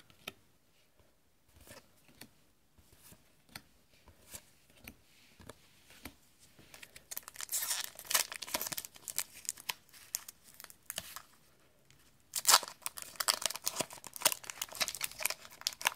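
A foil Yu-Gi-Oh! The Lost Millennium booster pack wrapper being torn open and crinkled by hand, in two bouts: one about halfway through and a louder one near the end. Before that, only soft ticks of cards being handled.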